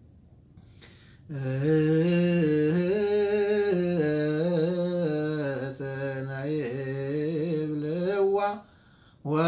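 A man chanting solo in Ethiopian Orthodox Ge'ez liturgical style (an Abun hymn): after a second's pause he sings one long drawn-out phrase on held vowels, the pitch stepping up and wavering in ornaments, then breaks off briefly and starts again near the end.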